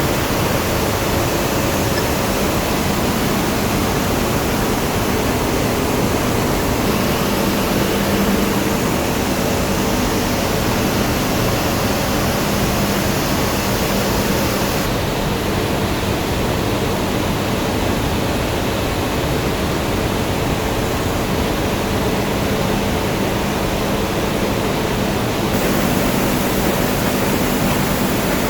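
Steady industrial roar at a steel line's non-oxidizing furnace, a loud even rushing noise with a faint low hum underneath. The hiss turns duller for about ten seconds in the middle, then returns.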